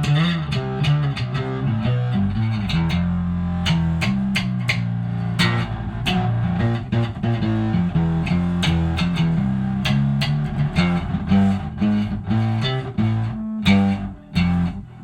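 Electric bass played through a Joyo Dr. J Solomon pedal with its drive turned up to heavy saturation: a distorted, fuzzy riff of plucked notes, not as tight sounding as a Wooly Mammoth-style fuzz. The notes break off briefly near the end.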